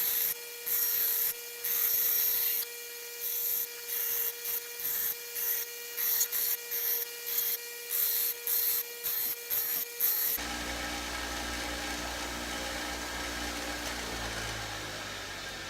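Steel knife blade pressed against a spinning grinding wheel in short repeated passes, each a second or less of gritty hiss over the steady hum of the motor. About ten seconds in the grinding stops abruptly, and a lower hum follows that slides down in pitch and fades near the end.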